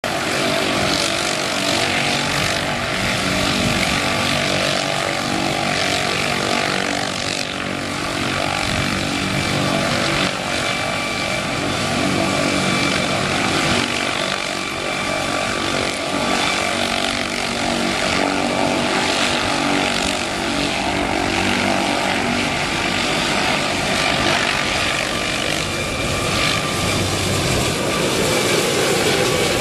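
MD 600N helicopter running steadily: the high, steady whine of its Allison 250 turboshaft engine over the rotor's noise.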